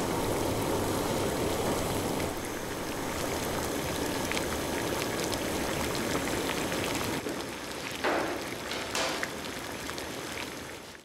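Water boiling in a lidded cooking pot on a stove, a steady bubbling, with two brief louder swells about eight and nine seconds in.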